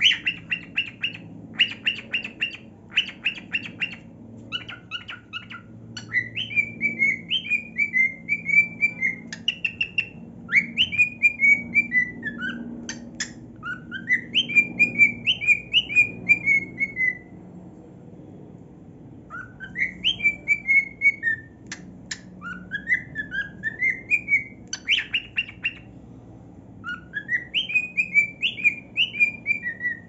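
Male grey cockatiel singing. It opens with bursts of rapid chirps, then whistles repeated warbling phrases that leap up sharply and step back down, with a pause of about two seconds just past the middle.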